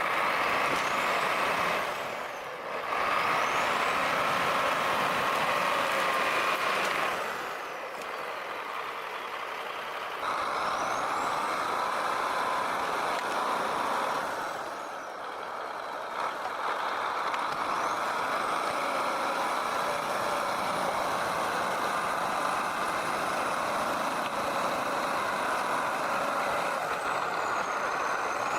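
Heavy vehicle engine running under load, surging and easing several times, with a high-pitched whine that rises and falls with each surge.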